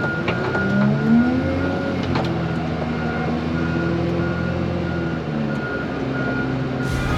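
Wheel loader backing up: its reversing alarm beeps steadily, a bit over two beeps a second, while the diesel engine revs up about a second in, holds, and drops back around five seconds in.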